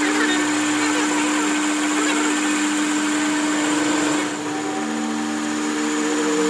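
An electric workshop machine running steadily: a constant motor hum over a whirring noise, easing slightly about four seconds in and then carrying on.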